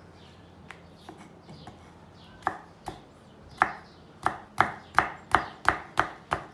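Kitchen knife chopping raw potato on a wooden cutting board: a few light cuts at first, then from about halfway a steady run of knife strikes on the board, about three a second, as the potato is diced into small cubes.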